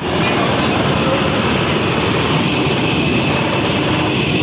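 Steady, loud mechanical noise of heavy machinery running, with a faint high whine held throughout.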